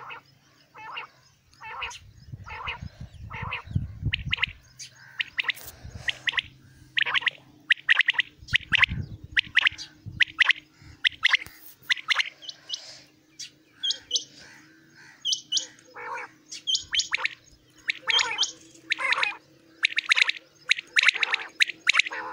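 Caged quails calling: short, sharp calls repeated several times a second, overlapping one another. Two low rumbles come in the first half.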